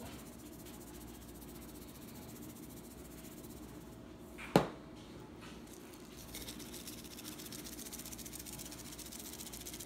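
Quiet kitchen room noise broken by one sharp click about halfway through, a spice container knocked against the countertop. From about two-thirds in, a faint rustling hiss.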